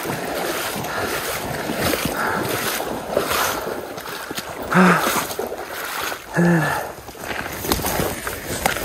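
Shallow stream water splashing and sloshing right at the microphone, with wind and handling noise, while an angler wades in to land a hooked king salmon. Two short vocal grunts come around the middle.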